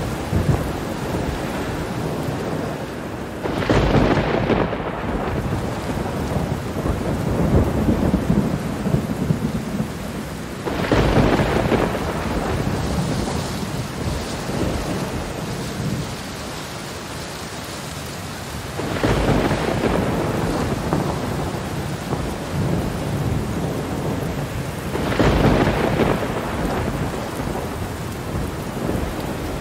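Steady heavy rain with thunder, which swells into a loud peal four times, roughly every seven or eight seconds.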